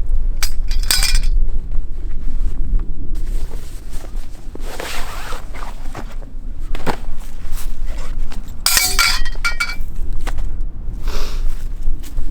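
Metal items clinking and rattling, in two bursts with a ringing ping, over a steady low rumble of wind on the microphone.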